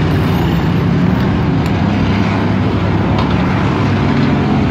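Dirt-track race car engines running at slow pace under a caution period: a steady, loud engine drone with no sharp events.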